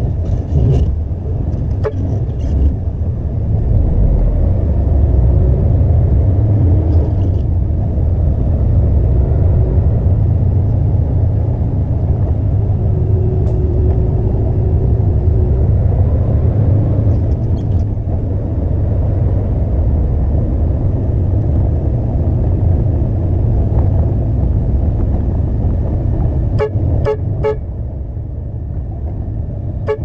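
Concrete mixer truck's diesel engine running with a steady low rumble. Near the end comes a quick run of about four short horn toots.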